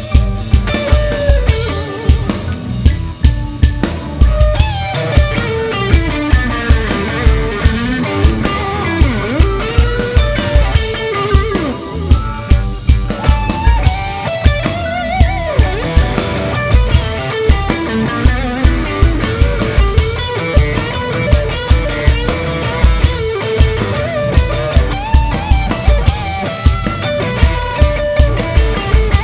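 Live rock band playing: electric guitar, bass and drum kit with a steady, heavy beat, and a lead line bending up and down in pitch above it.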